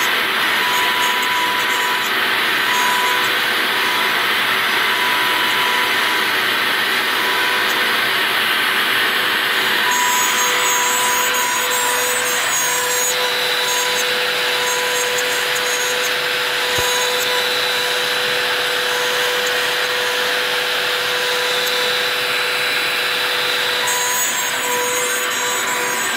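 Shapeoko 3 XXL CNC router cutting a wood sheet: the trim-router spindle runs steadily as the bit cuts, with the dust-collection vacuum drawing through the hose. The pitch of the cut shifts a little about ten seconds in.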